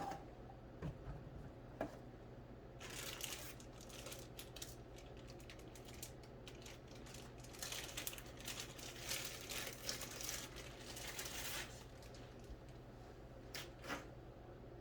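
Plastic packaging crinkling and rustling for several seconds, as a power cord is handled out of its plastic wrap, with a few light clicks before and after.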